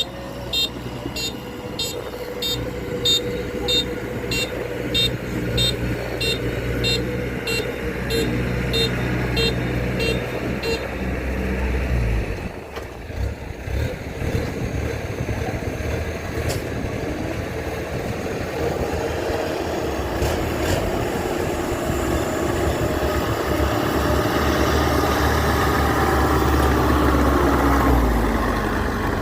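Kubota DC-93 combine harvester's diesel engine running, with a short high warning beep repeating about twice a second for the first ten seconds or so. The engine note dips about twelve seconds in, builds up again later, and eases off near the end.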